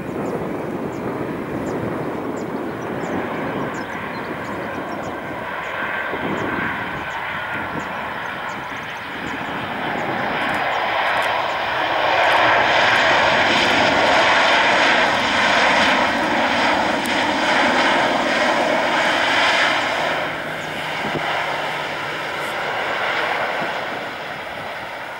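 Boeing 737-800's CFM56-7B jet engines during a landing: steady jet noise as the airliner comes down onto the runway. About ten seconds in, the engines spool up into reverse thrust, loud with a whining tone for several seconds, then wind back down as the jet slows on the rollout.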